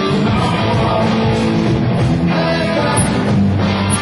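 Live rock band playing loud and steady, a full drum kit with cymbals under amplified guitar and bass.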